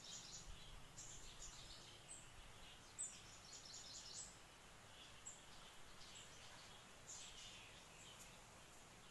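Near silence: faint room tone with many short, faint, high-pitched chirps scattered throughout.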